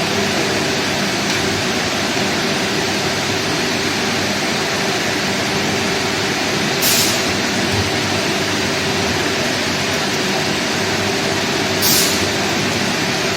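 Steady loud drone of running industrial plant machinery, a constant hum with a noisy rush over it. Two short sharp hisses break in, about seven and twelve seconds in.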